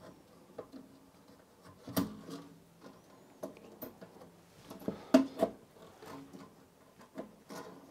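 Light clicks, scrapes and knocks of a plug-in circuit card being handled and slid out of or back into the card cage of a Philips PM5534 pattern generator, several separate knocks with soft rubbing noise between them.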